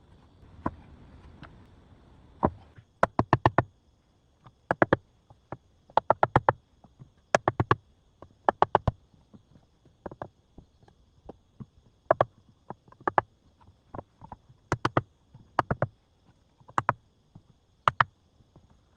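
Hard knocking strikes in quick clusters of two to five, with a cluster about every second. A faint steady high tone runs underneath.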